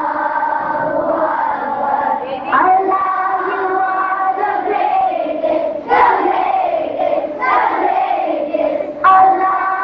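A group of children singing a song together in unison, holding long notes in phrases with short breaks between them.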